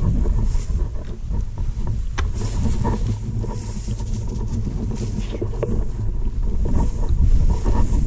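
Wind buffeting the camera microphone in a steady low rumble, with scattered crackles and swishes of dry prairie grass brushed aside by people walking through it.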